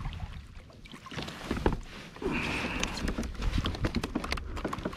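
Scattered knocks and clicks of a fish and fishing gear being handled aboard a plastic sit-on-top kayak, over a low rumble of wind on the microphone. Just past two seconds in comes a short higher-pitched hiss.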